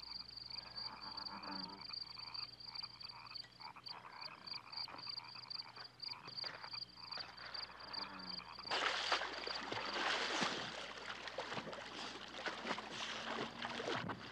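Night chorus of frogs croaking under a steady high trill. About nine seconds in, loud splashing of a person swimming takes over and becomes the loudest sound.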